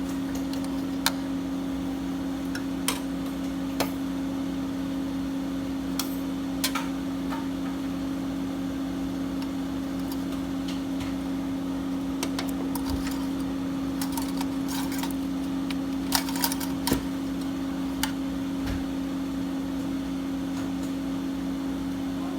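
A steady low hum at two fixed pitches runs throughout, with a dozen or so light, sharp clicks and taps scattered over it, as of small parts being handled. There is a quick cluster of clicks about two-thirds of the way in.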